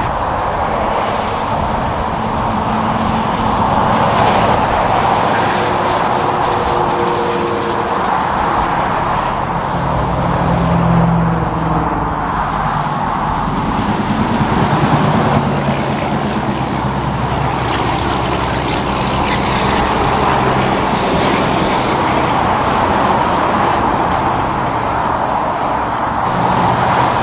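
Road traffic passing: big-rig diesel engines and tyre noise from a run of trucks and cars going by one after another, the engine hum swelling and fading as each vehicle passes.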